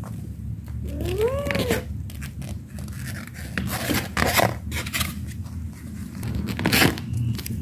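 Kittens scrabbling and clawing at the fabric and mesh walls of a playpen: a run of short scratchy scrapes and rustles. About a second in, a single meow rises and falls in pitch.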